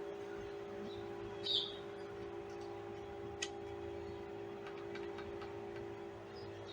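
A steady low hum of several held tones, with a few faint ticks and clicks over it.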